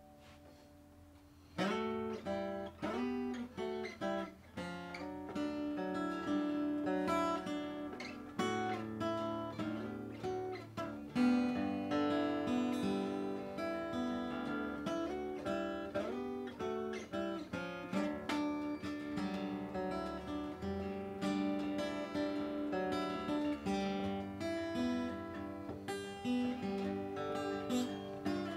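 Cole Clark cutaway acoustic guitar played solo: a continuous instrumental of picked notes and strummed chords, starting about one and a half seconds in.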